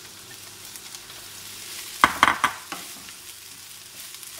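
Fried rice sizzling in a frying pan as cooked white rice is tipped in onto the vegetables and stirred with a spatula. A quick run of loud knocks and scrapes against the pan comes about two seconds in.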